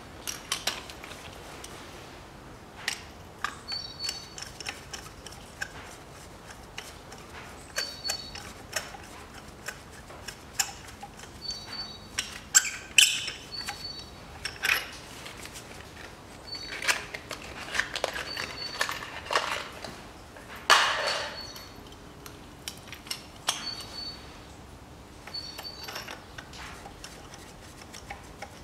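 Ratchet wrench on a long socket extension clicking in short irregular runs, with metal clinks, as a new spark plug is wound down into the cylinder head. Faint short high chirps of birds recur in the background.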